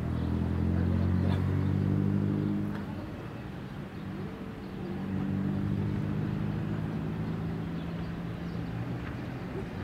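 A low, steady motor hum in two stretches: the first about two and a half seconds long from the start, the second from about four and a half seconds in to near the end.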